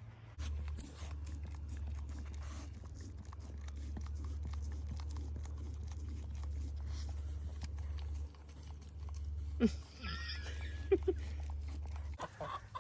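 Backyard chickens pecking at a pumpkin: many quick, irregular taps of beaks on the rind, with a couple of short clucks about ten seconds in, over a steady low hum.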